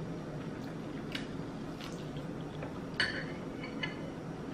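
A few light clinks and taps of cutlery against dishes, the sharpest about three seconds in.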